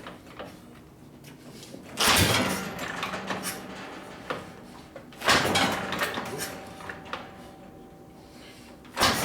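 Three kick-start attempts on a 1972 Harley-Davidson Ironhead Sportster, about three and a half seconds apart. Each is a sudden loud clunk of the kick mechanism as the engine turns over, dying away over a second or so without the engine catching.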